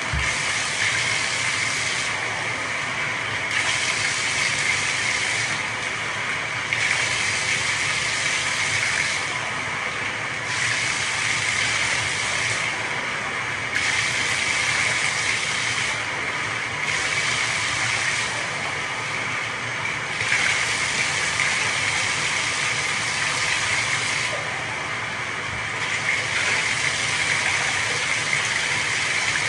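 Running water rinsing shampoo and apple cider vinegar out of a French bulldog's coat: a steady rush of water whose hiss brightens and dulls every few seconds.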